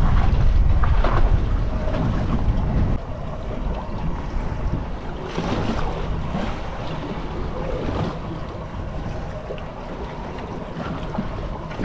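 Wind buffeting the microphone in a heavy low rumble that drops away suddenly about three seconds in, over the steady wash of a choppy sea around a small boat.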